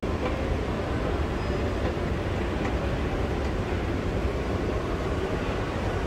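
Steady low rumbling roar of a large shopping-mall atrium's background noise, with no distinct voices standing out.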